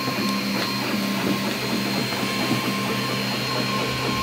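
Anet A8 3D printer running a print: its stepper motors and cooling fans make a steady mechanical hum with a thin, high, steady whine and small irregular ticks as the print head moves.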